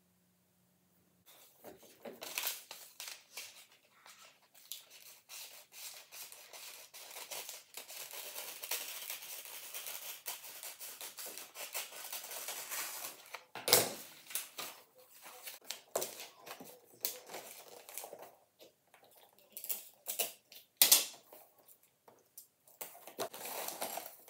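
Gift wrapping paper rustling and crinkling as it is handled and folded around a boxed present, with a few sharp taps and knocks, the loudest about 14 and 21 seconds in.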